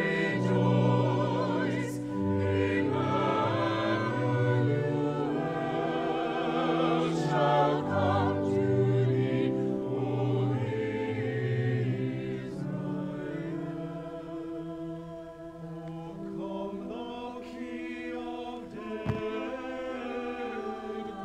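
Church choir singing an anthem in parts, the voices wavering with vibrato over sustained organ notes. The music softens a little midway and swells again toward the end.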